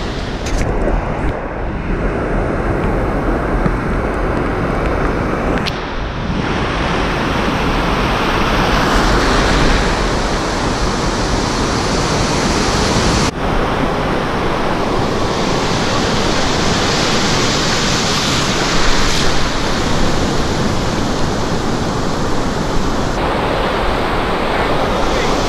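Ocean surf: breaking whitewater rushing and washing through shallow water, heard close up, with wind buffeting the microphone. The sound changes abruptly twice, about six and thirteen seconds in.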